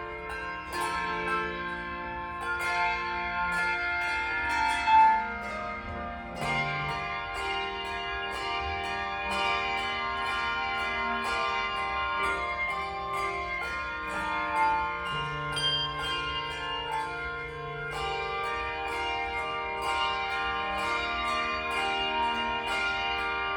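Handbells playing a tune, several bells ringing together so that their notes overlap and sustain, with new strikes coming in a steady rhythm. One louder high note rings out about five seconds in.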